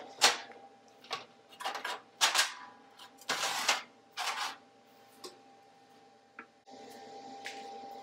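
A string of sharp metal clacks and scrapes as red magnetic welding squares and a metal rod are set down and shifted on a steel welding table, several knocks in the first half or so, the later ones sparser, over a faint steady hum.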